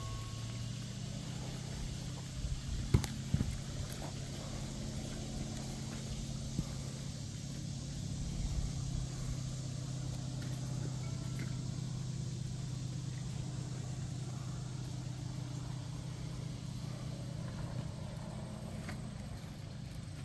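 A motor running with a steady low hum, with a few sharp clicks about three seconds in.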